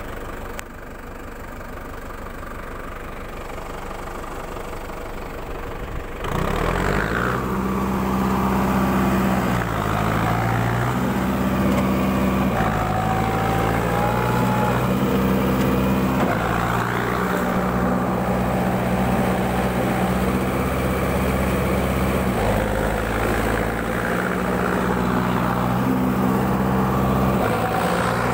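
Compact four-wheel-drive tractor's engine running at low speed, then about six seconds in opening up sharply and labouring under heavy load, its pitch rising and falling repeatedly as the mired wheels try to pull out of a deep mud rut.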